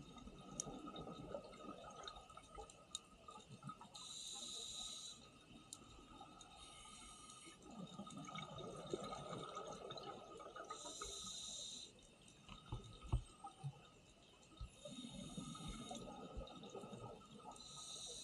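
Scuba diver breathing on a regulator, played at double speed: hissing inhalations through the demand valve alternate with rushes of exhaled bubbles over several breaths. A faint steady whine runs underneath.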